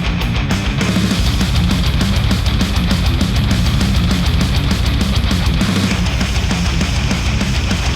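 Heavy rock music with electric guitar and drums, played back through a headphone and picked up by microphones, loud and steady; the arrangement shifts about a second in and again near the end.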